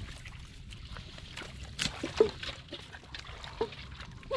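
Hands working through shallow muddy water: sloshing and trickling, with a couple of sharper splashes about two seconds in.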